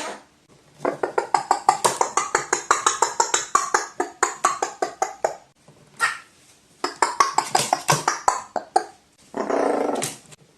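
A dog barking in fast strings of short barks, about six a second, in two runs, then one longer drawn-out call near the end.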